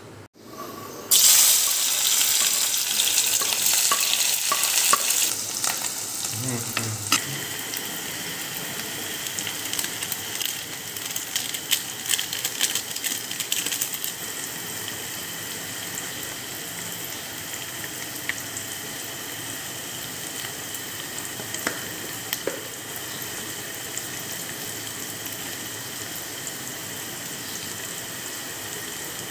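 Chopped onions frying in hot oil in a pan. The sizzle starts suddenly about a second in and is loudest for the next few seconds. It then settles to a steady sizzle with scattered pops and crackles.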